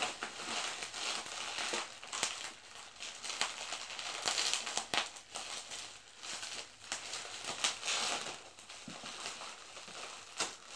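Clear plastic packaging crinkling and crackling as it is handled and pulled off by hand, with irregular sharp crackles.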